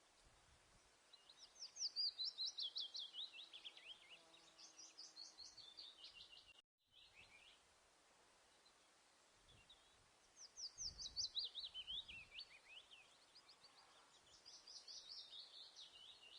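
A songbird singing: fast trills of quick downward-sweeping notes, each phrase a few seconds long and sliding lower in pitch. There are four phrases in two pairs, with a short gap of silence between the pairs.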